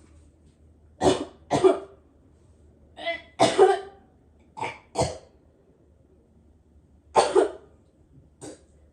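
A person coughing hard in four quick double coughs, each pair about a second and a half apart, with a fainter single cough near the end: put-on coughing for a fake coughing-up-blood act.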